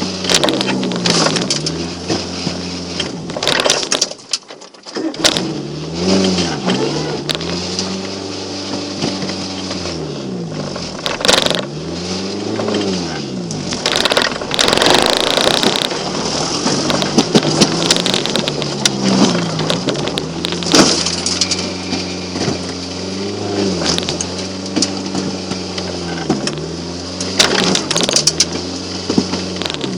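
Volkswagen Golf Mk2 1.3 four-cylinder petrol engine revving up and easing off again and again, its pitch rising and falling with each burst of throttle, with scattered knocks and clatters from the car. The engine sound drops away briefly about four seconds in.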